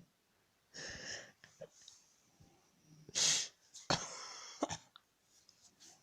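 A sleeping woman snoring: noisy, hissing breaths about every two and a half seconds, the loudest about three seconds in.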